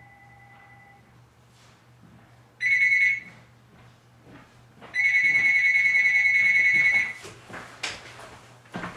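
A high electronic ringing tone sounds twice: a short ring, then one lasting about two seconds. A few clicks and knocks follow near the end.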